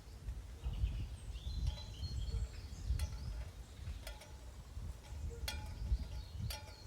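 Tin chimes of a sound sculpture clinking irregularly. Each strike is a bright metallic tap with a short ring, and a few sharper strikes come in the second half, over a low rumble.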